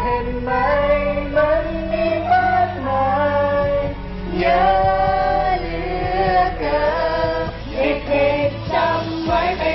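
A song with backing music and a woman's singing voice carrying the melody throughout.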